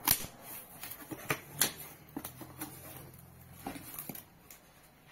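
Cardboard box flaps and paper leaflets being handled: an irregular string of sharp rustles and taps as the box is opened and the manuals are lifted off the polystyrene packing.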